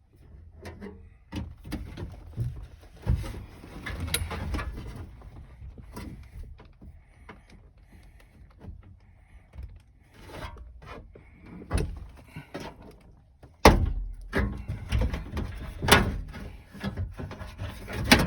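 Irregular clicks, knocks and rattles of hands and tools working on a car's rear lift door and its trim panel, with the loudest knocks about 14 and 16 seconds in.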